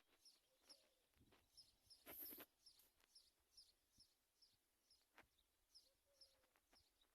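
Faint high bird chirps repeated steadily, about two a second, with a brief noise burst about two seconds in.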